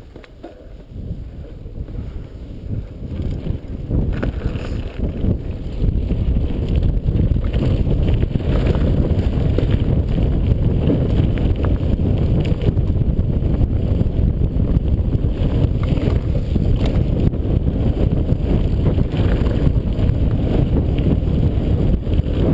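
Wind buffeting an action camera's microphone as a mountain bike speeds downhill, with the tyres rumbling over a gravel track and short rattles from the bike. The rush grows louder over the first six seconds as the bike gathers speed, then holds steady.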